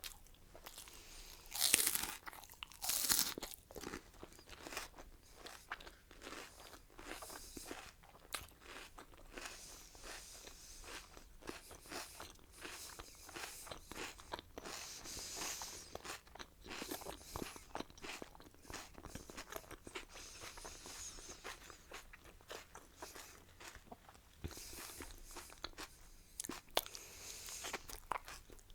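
Close-miked eating: crunchy bites and chewing, a dense run of small crackling clicks, with two louder crunches a couple of seconds in.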